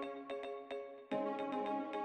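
Background music of short, quick, evenly paced pitched notes, changing to a new chord about halfway through.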